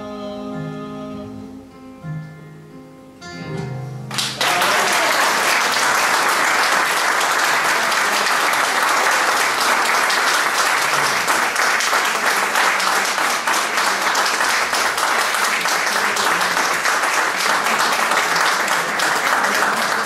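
The last notes of an acoustic guitar ring out as the song ends, then about four seconds in an audience breaks into applause, sudden and loud, and keeps clapping steadily.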